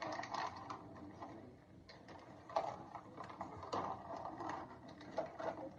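Faint, irregular crinkling and clicking of individually bagged plastic snack packets being handled.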